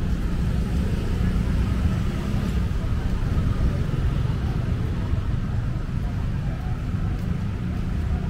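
Busy street traffic: a steady, low rumble of passing cars and motorbikes.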